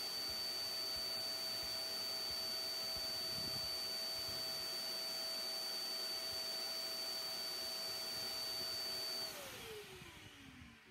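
Workshop dust extractor running steadily through the track saw's hose, then switched off about nine seconds in, its motor winding down with a falling whine.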